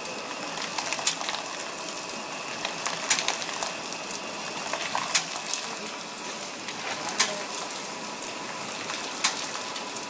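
Bottle washing machine running: a steady hiss of spraying water, with a sharp metallic clank about every two seconds and a faint steady whine.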